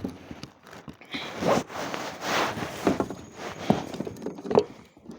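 Handling noise in a fishing kayak: a series of irregular soft knocks, scrapes and rustles, about six in all.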